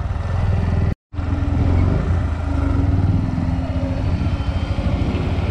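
Motor vehicle engine running steadily, with a low pulsing note. The sound cuts out completely for a split second about a second in, then carries on.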